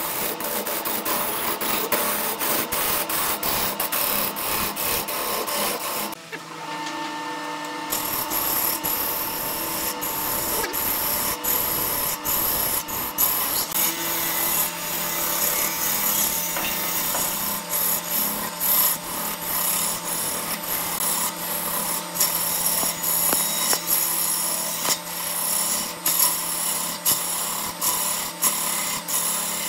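Wood lathe spinning a large wood blank while a hand-held turning tool cuts into it: a continuous rough scraping and shaving sound over a steady motor hum. The cutting drops out for about two seconds around six seconds in, then resumes.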